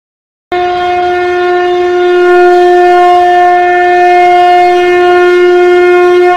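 Conch shell (shankh) blown in a single long, steady note that starts about half a second in.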